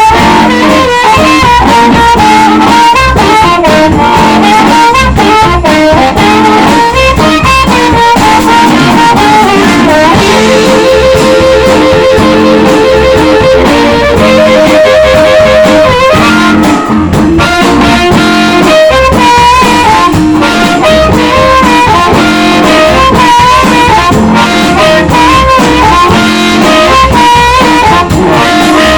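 Live blues band playing: a harmonica leads over electric guitar, bass and drums with a steady beat. From about a third of the way in, a single note is repeated rapidly for several seconds before the lead line returns.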